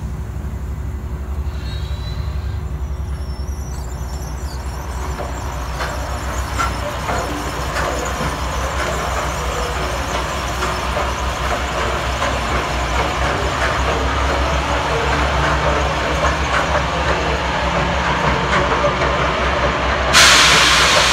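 Steady low rumble with scattered rattles and clicks as the pusher and pod run off down the steel test tube, slowly growing louder. About a second before the end a loud hiss starts suddenly.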